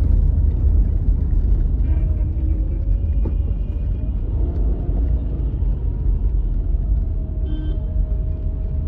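Steady low rumble of a car driving in slow, heavy traffic, heard from inside the cabin, with faint thin tones from the surrounding traffic.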